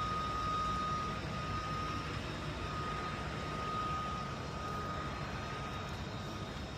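Idling truck engine: a steady low rumble and hum, with a faint thin whine held at one pitch.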